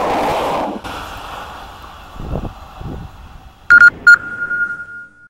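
A double-deck passenger train rushing past close by, its noise cut off abruptly under a second in. Near the end come two short, loud, high beeps at one pitch, the second ringing on and fading out.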